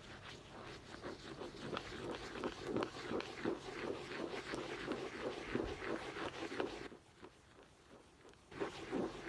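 Rapid, continuous scratching on a book, many quick strokes a second. It stops briefly about seven seconds in and starts again near the end.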